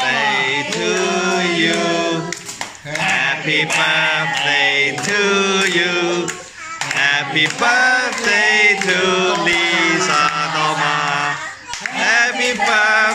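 A small group of adults and children singing a song together, with hand claps along the singing.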